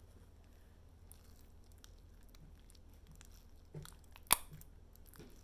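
Homemade fluffy slime, still dense and glue-like, being stretched and kneaded by hand: faint sticky crackles and squelches, with one sharp click a little past four seconds in.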